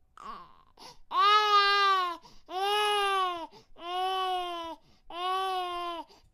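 Baby crying: four long wails of about a second each, rising and falling in pitch, with short catching breaths between them.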